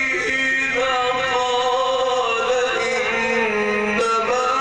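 A man reciting the Quran in the melodic mujawwad style into a microphone, drawing out long, wavering ornamented notes.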